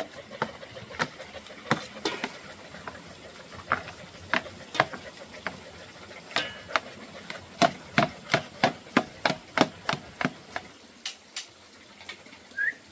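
Kitchen work: scattered sharp knocks of utensils, then a run of about a dozen even strokes, about three a second, past the middle.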